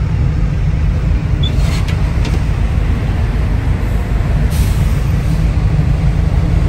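Diesel engines of parked buses and trucks idling together, a loud steady low rumble. A short hiss of air about four and a half seconds in, like an air brake releasing.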